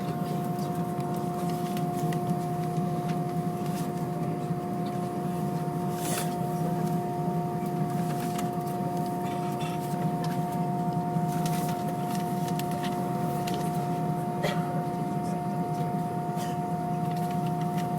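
Steady cabin hum of a British Airways Airbus A320 with its IAE V2500 engines running, several constant whining tones over a low rumble, and small clicks and rattles now and then.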